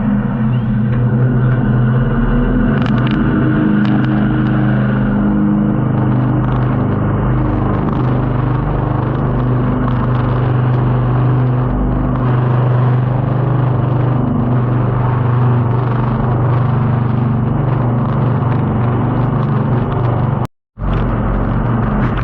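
Jet boat's engine running steadily at speed, a loud, even low drone. The sound cuts out completely for a moment near the end.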